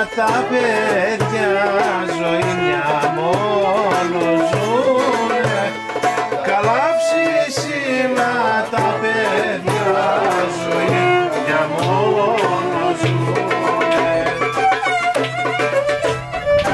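Greek folk music: a bowed violin melody with slides and ornaments over lute and hand percussion keeping a steady beat.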